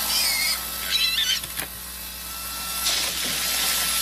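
A cartoon backpack leaf blower running with a steady rushing hiss and a thin whine, as pigs squeal twice, briefly and high-pitched, in the first second and a half.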